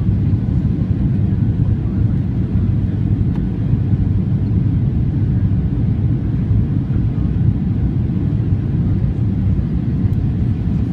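Boeing 737-800 cabin noise on approach: a steady low rumble of its CFM56-7B turbofan engines and the airflow past the fuselage, heard beside the wing.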